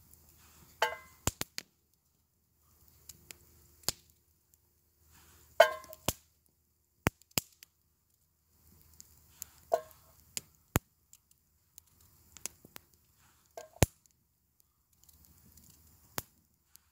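Small knife cutting through a raw vegetable held in the hand: four short crunchy cracks among about ten sharp clicks, irregularly spaced a second or two apart.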